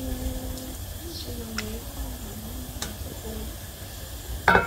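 Faint distant voices over a low background, then one sharp clank of metal cookware about four and a half seconds in.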